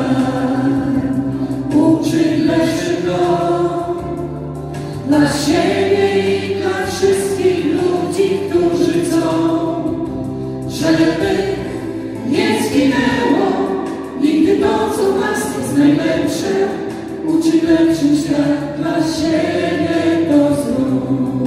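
A mixed vocal group sings long held notes in harmony, over a steady musical backing.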